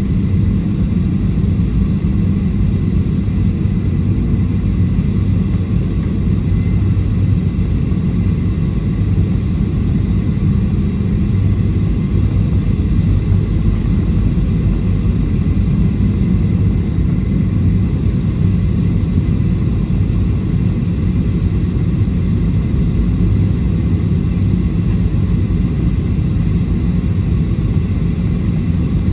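Cabin noise inside a Boeing 737-700 airliner in flight: a steady low roar of airflow and the CFM56 turbofan engines, with a faint steady high whine over it.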